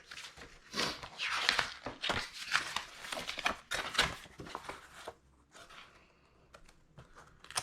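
Paper instruction sheets rustling and crinkling as they are handled and unfolded, with a few light clicks and taps. It goes quiet for the last couple of seconds.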